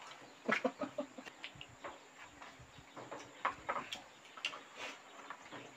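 Irregular soft clicks and smacks of people eating rice with their hands off a banana leaf: chewing, lip smacks and fingers working the food.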